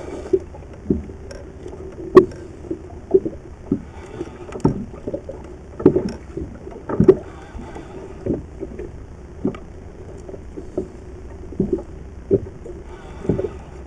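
Small open motorboat at sea: sharp, irregular knocks and water slaps against the hull, roughly one a second, over a steady low hum.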